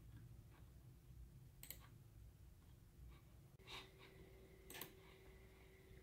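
Near silence with a few faint, separate computer mouse clicks. A faint steady hum sets in a little past halfway.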